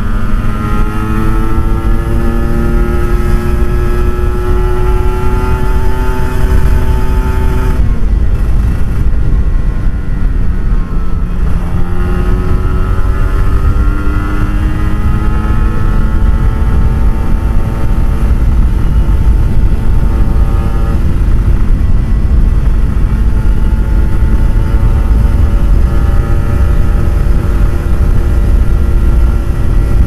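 Kawasaki Ninja RR 150 two-stroke single with an Eighty Racing aftermarket exhaust, running under load over a heavy low rumble. Its pitch climbs steadily, falls away about eight seconds in, then climbs again, eases near 21 seconds and holds fairly steady.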